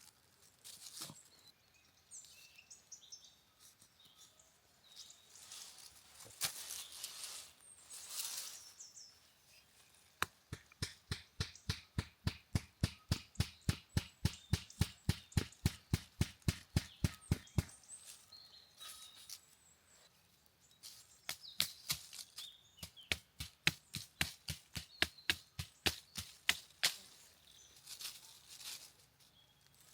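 A run of rapid, evenly spaced knocks, about four a second, followed by a looser series of knocks, with birds chirping faintly.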